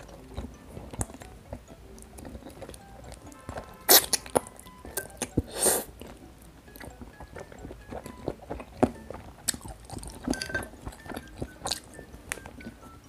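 Close-miked eating: a person chewing food, with small wet mouth clicks and two loud, short, noisy mouth sounds about four and six seconds in, over soft background music.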